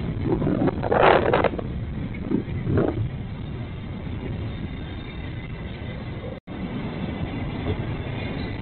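Steady rumbling vehicle noise, with a short louder rush about a second in and a smaller one near three seconds; the sound drops out for an instant just past six seconds.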